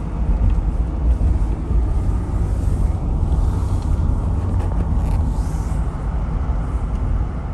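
Steady road noise inside a moving car's cabin: a low, even rumble of the engine and tyres with a faint hiss over it.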